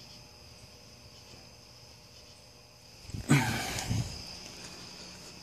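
A faint, steady high-pitched whine in the background. About three seconds in comes a brief, louder rustle and knock of something being handled, with a second knock under a second later.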